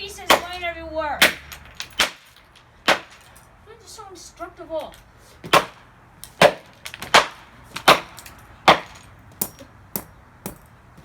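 Repeated sharp, cracking blows against the cheap plastic case of a Dreamsky DS206 alarm clock radio being smashed apart: a few scattered hits at first, then a steady run of about eight hits, a little under a second apart, in the second half. A short pitched sound sliding in pitch comes near the start and again about four seconds in.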